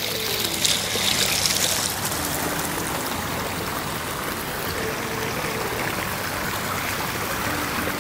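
Water running down a stepped stone channel, a steady trickling and rushing.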